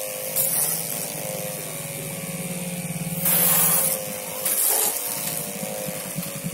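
Homemade 12-volt electric water-pump pressure washer running with a steady whine and pulsing hum. Its water jet hisses and splashes against a motorcycle's side in short bursts, about half a second in, then from about three seconds for under a second, and again near five seconds.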